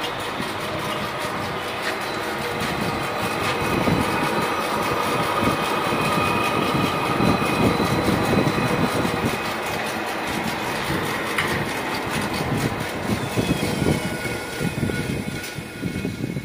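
Metal lathe running and cutting the rim of a large spinning steel disc, throwing off long curling chips: a steady machine rumble with a few faint, thin high tones from the cut.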